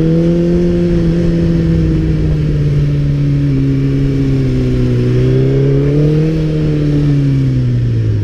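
Suzuki Hayabusa's inline-four engine running on the move: its note rises slightly at first, dips, climbs again about six seconds in, then falls away near the end.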